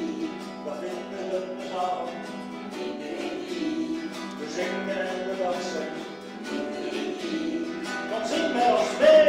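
Acoustic guitar strummed in a steady rhythm while a group of people sing along, the voices growing louder near the end.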